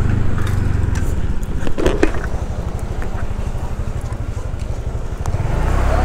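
Motor scooter engine running steadily at low road speed, picked up by a microphone inside the rider's helmet.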